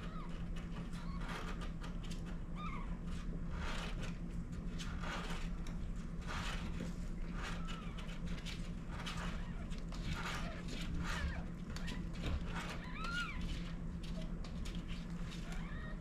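Newborn kittens give a few short, high squeaks, one near the start and a couple about thirteen seconds in. Their mother cat licks and shuffles over them in the bedding, making many brief soft sounds. A steady low electrical hum runs underneath.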